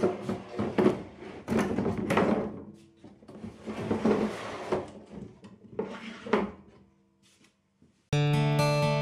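Four rasping scraping strokes, each about a second long, like wood being worked or slid against wood. Acoustic guitar music starts suddenly about a second before the end.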